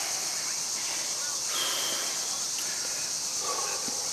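Outdoor ambience: a steady high hiss, with a few short faint chirps through it.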